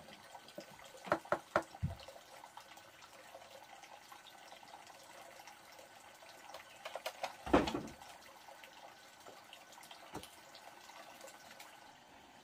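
Water running and splashing, with a quick run of sharp knocks about a second in and a louder clatter about halfway through.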